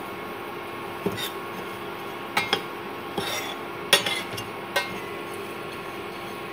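Steel spoon stirring and scraping dry-roasting millet flakes and nuts in a stainless steel saucepan, with several sharp clinks of the spoon against the pan, the loudest about four seconds in.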